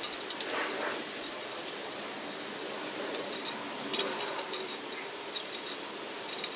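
Light metallic clicks and clinks of steel bolts, nuts and a ratchet socket wrench being handled while an engine bracket is bolted on. A quicker run of clicks comes about five seconds in.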